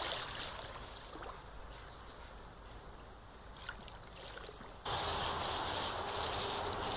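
German Shepherd digging in beach sand, its front paws scraping and flinging sand in faint scattered scratches over a steady outdoor rushing noise. About five seconds in, the rushing noise abruptly gets much louder.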